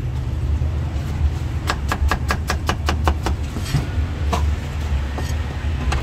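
Cleaver chopping cucumber on a wooden chopping block: a quick run of about eight sharp knocks, some five a second, starting a little under two seconds in, then a few single knocks. A steady low rumble runs underneath.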